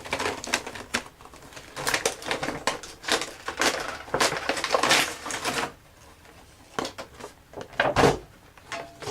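Cardboard toy packaging being worked open by hand: irregular crackling, scraping and crinkling of the card and its tape, easing off about six seconds in, with a loud sharp crackle about eight seconds in.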